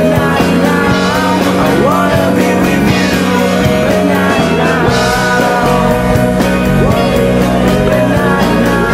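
Indie rock band recording playing: electric guitars and drums with a steady beat, some lines sliding in pitch.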